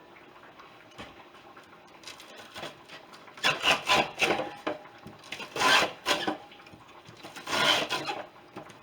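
Ears of corn being scraped along the blades of a Lee's Corn Cutter and Creamer, cutting the kernels off the cob. Several rasping strokes come roughly two seconds apart, starting about three and a half seconds in.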